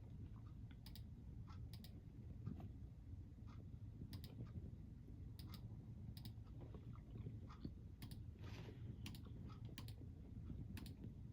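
Chewing a crunchy snack: irregular sharp clicks and crunches over a steady low hum, with one short crunch about eight seconds in.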